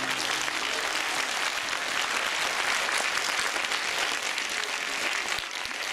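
Audience applauding steadily at the end of a song. The song's last held note dies away about a second in.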